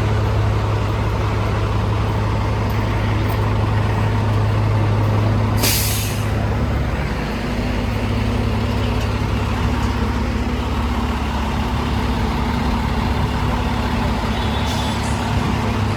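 Diesel engine of a fire apparatus idling with a steady low hum, its note shifting slightly about seven seconds in. A short hiss of air about six seconds in, and a fainter one near the end.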